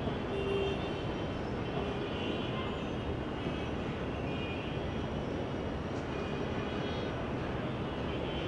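Steady rush of outdoor city noise, distant traffic mixed with wind, with faint thin high tones coming and going over it.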